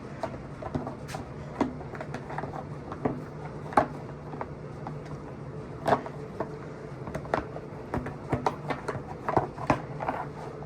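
Irregular clicks and knocks of a plastic dirt-bike fender and its hardware being handled and worked into place, with a few sharper knocks about four and six seconds in, over a steady low hum.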